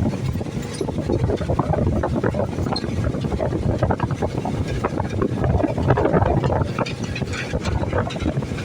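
Excavator working: a loud, dense rumble, uneven in level and full of quick knocks and rattles.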